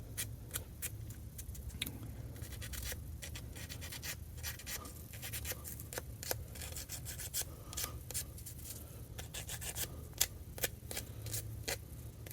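Faint rubbing and scraping with scattered light clicks and ticks throughout: small plastic model parts being handled and worked by hand, over a low steady hum.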